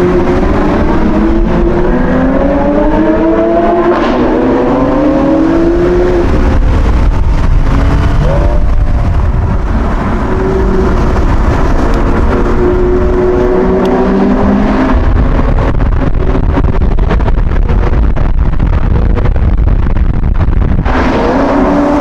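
Supercar engine under hard acceleration, its pitch climbing, dropping back at gear changes and climbing again several times, over a heavy low rumble.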